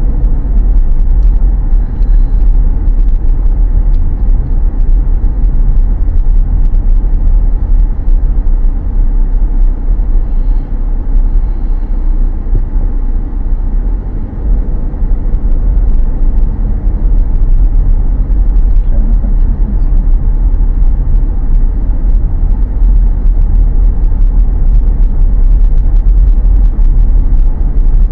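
Car being driven on a city road: a loud, steady low rumble of engine and tyre noise.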